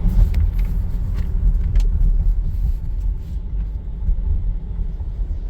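Car being driven: a steady low rumble of engine and road noise, with a few faint light clicks in the first two seconds.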